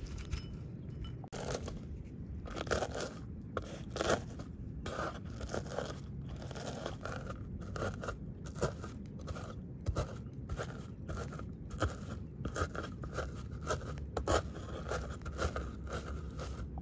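Walnuts being crushed under a hand-held stone on a wooden board: a run of irregular crunches and scrapes as the stone presses and rolls over the kernels.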